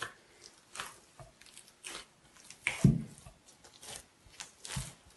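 Hands kneading stiff bread dough of flour and coarse semolina in a glazed earthenware kneading dish (gsaa): irregular squelches and slaps about once a second, the loudest a deeper thump about three seconds in.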